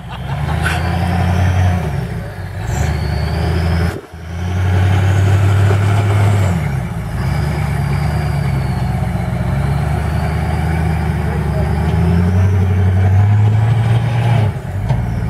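Hummer H1 engine working under load as the truck crawls through deep mud, its pitch rising and falling with the throttle. A faint high whine rises and falls with it. The sound drops out briefly about four seconds in.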